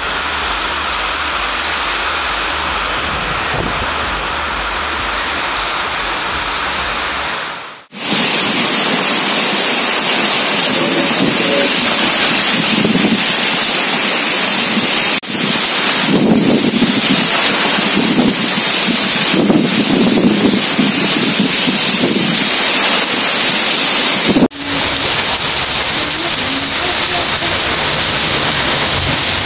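Heavy rain pouring down in strong wind, a steady dense hiss. It breaks off twice abruptly between separate recordings, and the last stretch is the loudest.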